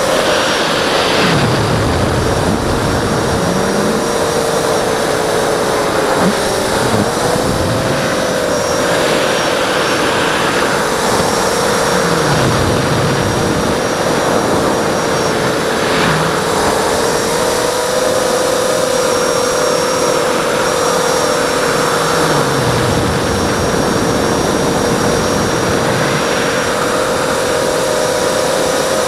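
Hexacopter in flight: six Multistar Elite 2204 2300KV brushless motors spinning Gemfan three-blade 5-inch props, a steady loud whine over rushing air. The pitch sags and recovers slightly with throttle, most clearly about six to seven seconds in.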